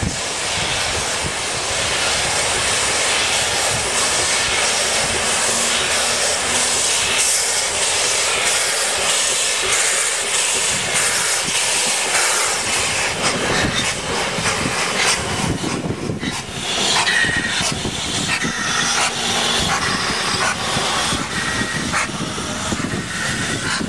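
Narrow-gauge steam locomotive hissing loudly as it vents steam from its open cylinder drain cocks while moving slowly. In the second half the passenger coaches roll past with uneven clanking and wheel noise.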